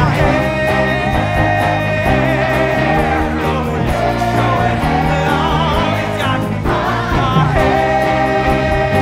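Rock music with singing: a voice holding long notes over a band with electric guitar and a steady beat.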